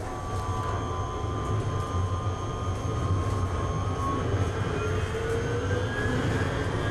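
Electric tram running along street tracks, heard from inside the driver's cab: a steady low rumble with thin electric whines over it. From about halfway through, the whines rise in pitch as the tram picks up speed.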